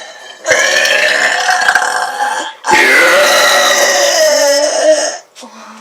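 A woman belching twice, loud and drawn out, each burp lasting about two seconds or more; the second sinks lower in pitch toward its end.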